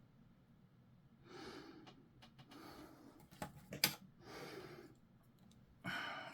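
Faint breathing close to the microphone, a few soft breaths about a second apart. A couple of sharp small clicks come a little past three and a half seconds in, from handling the plastic model parts.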